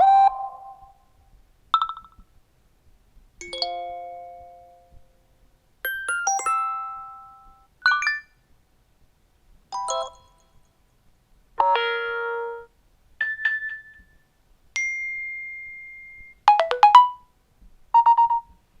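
iOS 7 alert tones played one after another: about ten short electronic chimes and dings, each a different little melody, with brief silences between them. One is a single steady beep held for over a second.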